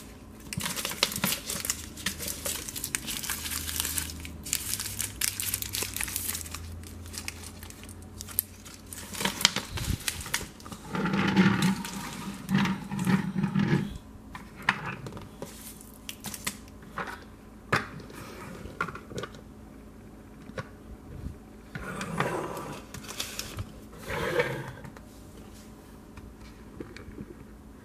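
Plastic candy-stick wrappers crinkling as they are handled, then clicks and knocks of plastic toy trucks being set down and moved on a wooden floor, with a louder stretch around the middle.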